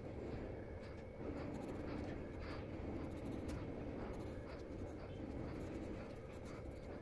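Graphite pencil scratching across paper in short, irregular strokes as lines are sketched, over a steady low background hum.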